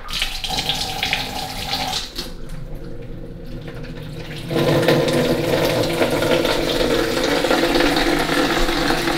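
Quarter-turn kitchen mixer tap turned on, water running from the spout into a stainless steel sink. About four and a half seconds in the flow gets louder as the second lever is opened, with a steady hum under the rush of water.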